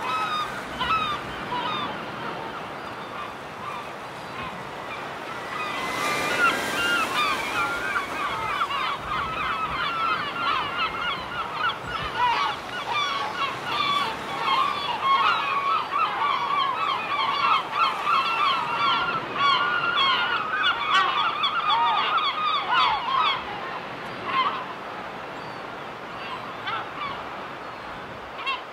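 A flock of gulls calling: many short, overlapping calls that thicken a few seconds in and thin out a few seconds before the end.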